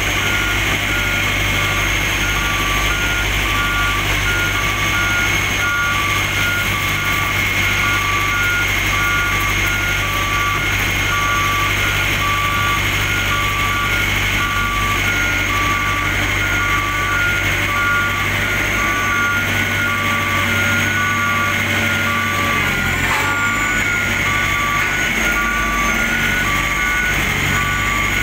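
Reversing alarm beeping steadily, alternating between two pitches, over the steady running of pneumatic-tyred road rollers' diesel engines as they compact fresh asphalt.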